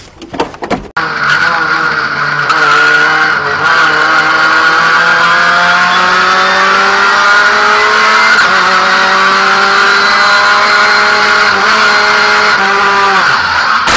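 Racing car engine heard from inside the cockpit under hard acceleration. Its pitch climbs steadily and drops back at each of several upshifts, then falls away near the end. It cuts in abruptly about a second in, after a few scattered knocks.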